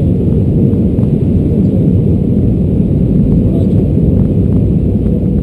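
Steady, deep cabin noise of an Airbus A319-114 in flight: the engines and the air rushing past the fuselage, heard from a window seat over the wing, with a faint steady hum above it.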